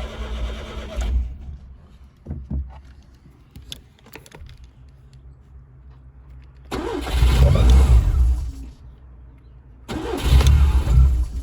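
Rover Metro 111's 1.1-litre K-Series engine, which has a misfire, running and cutting out about a second in. After a few seconds of small knocks it bursts back into life for about two seconds, stops, then starts up again near the end.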